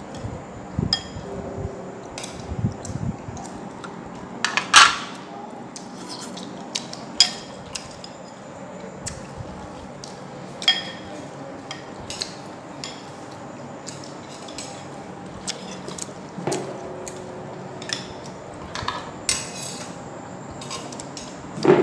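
Spoons and chopsticks clinking and scraping against china bowls and a metal serving tray while people eat, in scattered irregular clinks, the loudest about five seconds in.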